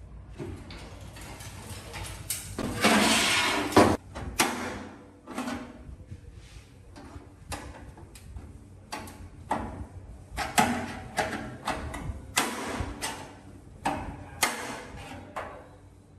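Irregular handling noises of metal parts: a string of sharp knocks and clicks mixed with short scraping or rasping strokes, the longest and loudest about three seconds in.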